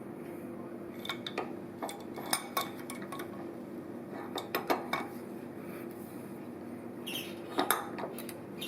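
Light metallic clinks and knocks of steel tools and parts being handled on a milling machine during cutter setup, in a few short clusters, over a steady low hum.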